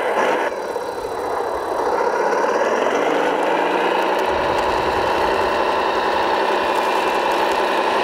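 Simulated diesel engine sound from the sound module of a 1/14 scale RC Mercedes-Benz Arocs 8x8 truck as it drives off. The pitch rises over the first two seconds or so, then holds steady.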